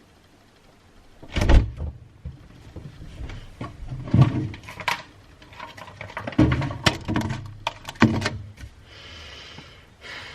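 A series of knocks and thuds, about half a dozen over several seconds with lighter clicks between them, typical of things being handled and a door being moved; a short soft hiss near the end.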